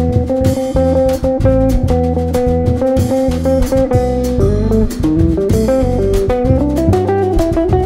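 Instrumental break of a song with no singing: a guitar plays the melody over bass guitar and a drum kit, with the melody moving in shorter, quicker notes in the second half.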